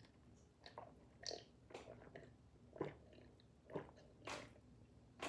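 A person gulping down a cup of fizzy soda, faint swallows coming one after another at uneven intervals, about half a dozen in all.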